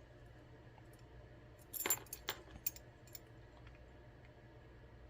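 A brief cluster of small metallic clicks and clinks about two seconds in, from the key and plug of an ASSA Twin 6000 lock cylinder being turned during disassembly.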